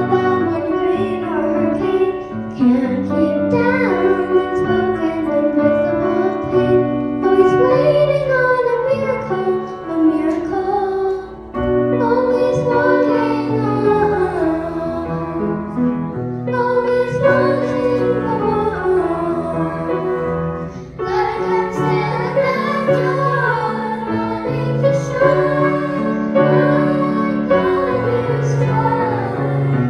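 A girl singing a slow melody into a microphone, with piano accompaniment.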